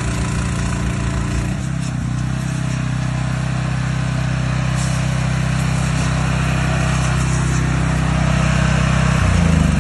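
Van-mounted hot water and steam pressure washer unit running steadily, a low machine drone with hiss over it. The tone shifts about one and a half seconds in, and the unit winds down, falling in pitch, near the end.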